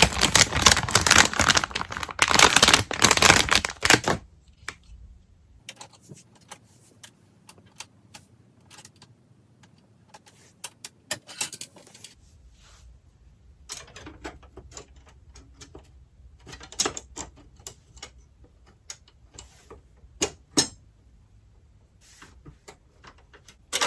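Packaging rustling loudly for about four seconds as a PC Wi-Fi card is taken out of its box. Then scattered small clicks and light taps as the card and its parts are handled and fitted.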